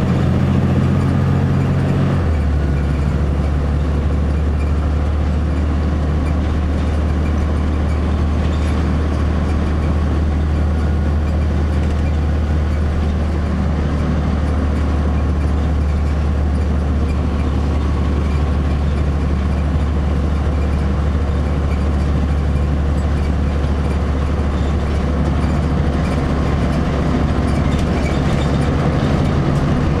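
Cummins ISC six-cylinder diesel of a Blue Bird CS transit bus running steadily while the bus is under way, heard from inside the cabin. The engine's pitch changes about two seconds in, then holds steady.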